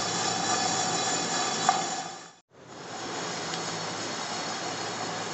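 Whole spices dry-roasting in a small aluminium pan shaken over a low gas flame: a steady hiss with the spices rattling in the pan. The sound drops out for a moment about halfway through.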